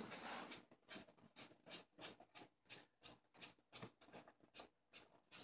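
Faint scratchy strokes of a paintbrush brushing paint onto a tennis ball's felt, about three a second.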